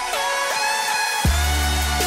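Electronic background music: held synth tones that glide in pitch, joined a little over a second in by a deep bass with a hit that swoops down in pitch.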